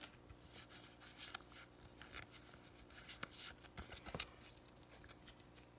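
Faint rustling and light scraping of Pokémon trading cards being slid against one another in the hands, a scatter of short scratchy strokes that come thickest between about three and four and a half seconds in.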